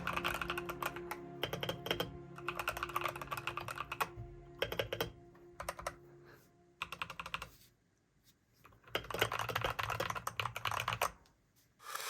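Fast typing on an Epomaker EP75 mechanical keyboard fitted with Epomaker Budgerigar tactile switches: dense runs of key clacks, a pause of about a second and a half, then a final run that stops near the end. Soft background music is under the first half.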